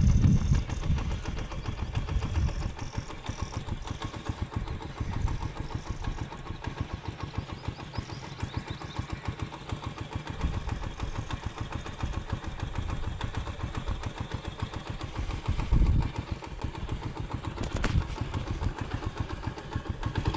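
Honda CD70 motorcycle's small single-cylinder four-stroke engine running with an even, rapid putter. It swells louder briefly near the start and again about sixteen seconds in.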